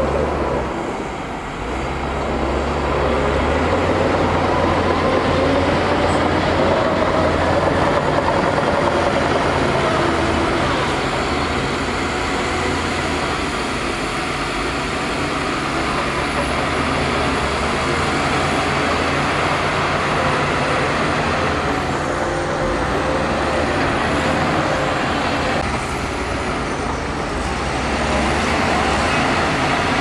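Diesel engines of a tipping dump truck and a crawler bulldozer running together under load. It is a steady, loud mechanical rumble whose pitch wavers slightly, with a brief dip about a second in.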